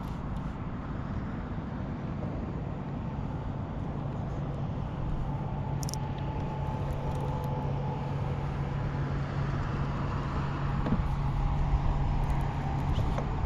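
A steady, low motor hum running over a rumble of wind and water noise.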